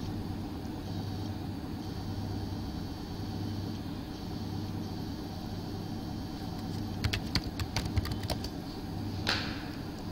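Keyboard keys typed in a quick run of about eight clicks, entering a login password, then one firmer keystroke about a second later as Enter is pressed. Under the keystrokes there is a steady low hum.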